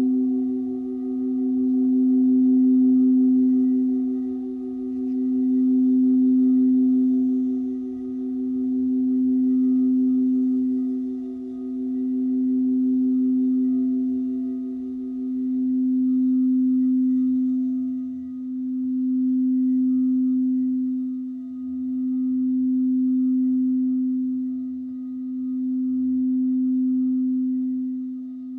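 Singing bowl sounding the root chakra tone: one low, steady ringing tone that swells and dips about every three and a half seconds, with fainter higher overtones, one of which fades out a little past the middle.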